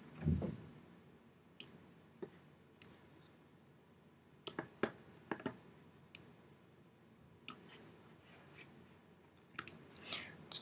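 Computer mouse clicks at irregular intervals, some single and some in quick pairs, with a cluster of several near the end. A low thump just after the start is the loudest sound.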